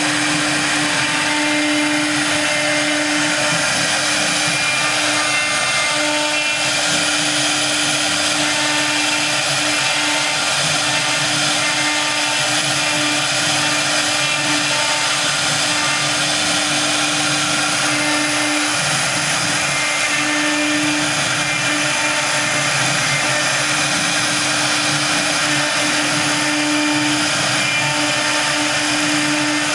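Spindle of a three-spindle STM1325-3T CNC wood router running at high speed while its cutter engraves lettering into a wood panel: a steady hum under a dense hiss from the cut.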